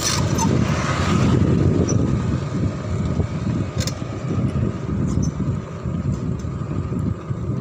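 Riding noise from a handlebar-mounted camera on a moving bicycle: a low, fluctuating rumble of wind on the microphone and road noise, with street traffic around. A single sharp click comes about four seconds in.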